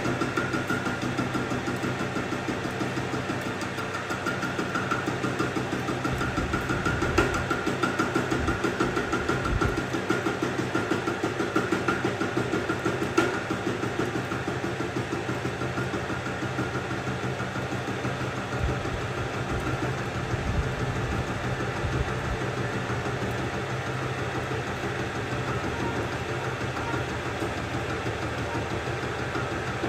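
Metal lathe running with a rotating cutter in its chuck, milling the steel jaw of a pipe wrench clamped on the cross slide: a steady machining drone with a fast, even pulsing from the cut.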